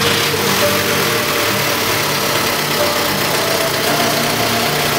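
Volkswagen 1.9 L ALH four-cylinder turbodiesel running steadily at idle moments after its first startup since being swapped into a 2004 Jetta TDI wagon.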